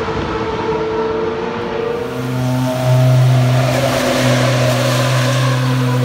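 Formula 1 car engines. First a distant engine note on the track, falling slightly in pitch. Then, about two seconds in, a steady, low engine note starts and holds unchanged: a car running at idle in the pit lane.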